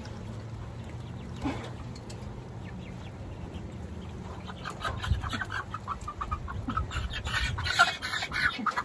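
Young chickens clucking in a run of short calls during the second half, as they are chased out from under a coop, over a low rumble.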